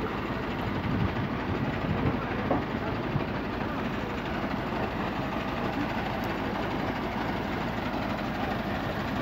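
KAMAZ truck engine running steadily, a low, even rumble.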